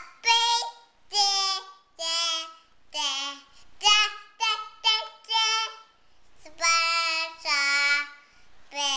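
Toddler girl singing a made-up tune in a high little voice, a string of short sung notes with a brief pause about six seconds in.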